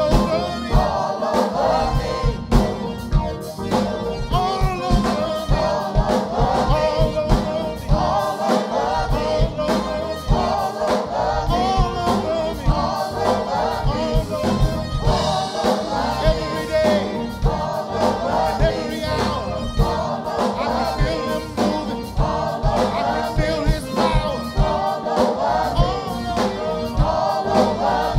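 Gospel praise team singing together into microphones, backed by a live drum kit keeping a steady beat.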